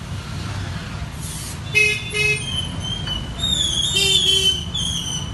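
Two short vehicle-horn toots about two seconds in, followed by a longer, higher wavering horn tone, over a steady low rumble.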